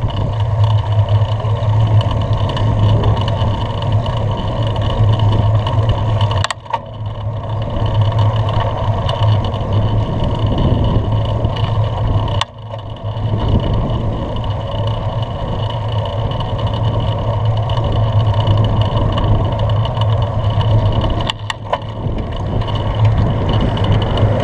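Wind buffeting a bicycle-mounted camera's microphone while riding fast in a race, a loud steady rumble that drops out briefly three times.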